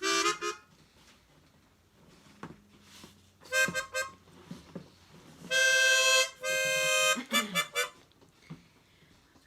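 Harmonica played in short phrases with pauses between: a quick note at the start, a few short notes a few seconds in, then two held chords of under a second each and some quick notes past the middle.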